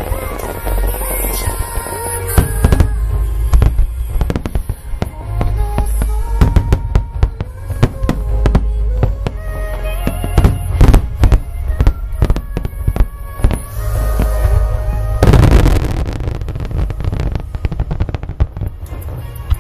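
Large fireworks display: aerial shells bursting one after another in rapid succession, with music playing underneath. About fifteen seconds in, many bursts pile up into one loud, dense barrage.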